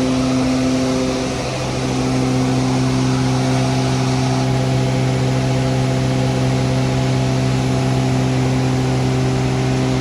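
Feed grinder machine running steadily: a constant machine hum over a rushing grinding noise, dipping briefly about a second and a half in.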